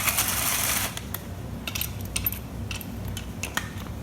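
Bolt removal on a transmission case: a brief burst of tool noise lasting under a second, then scattered metal clicks and taps of tools and bolts.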